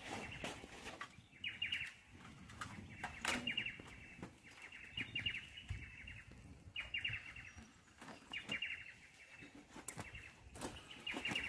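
A bird calling over and over: a short call made of a quick run of notes, repeated about every two seconds, with scattered clicks and knocks underneath.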